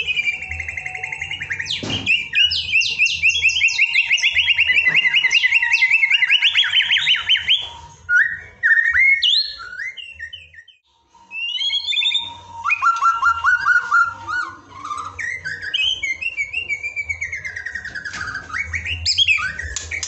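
White-rumped shama singing a long, varied song: fast trills of repeated notes and whistled sliding phrases. The song breaks off briefly about eleven seconds in, then carries on.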